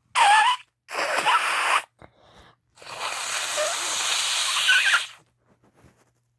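A person sneezing hard twice in quick succession, the sneezing brought on by chhinkni snuff, followed by a long hissing rush of breath lasting a couple of seconds.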